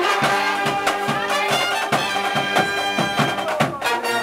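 Pep band playing: brass, including sousaphones, holding long notes over a steady drumbeat.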